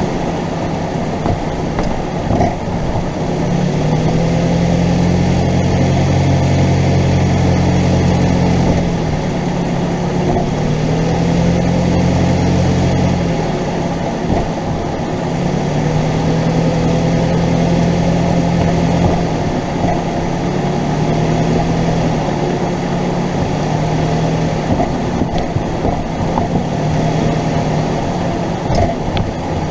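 Ford Focus driving, its engine note rising and falling, with occasional sharp clunks from the front suspension. The clunks come from a worn driver-side front sway bar end link whose lower ball-and-cup joint has gone bad.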